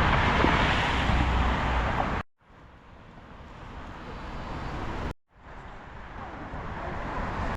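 Roadside wind and traffic noise, heard in three short stretches separated by two abrupt cuts; in the second and third stretches the noise grows steadily louder.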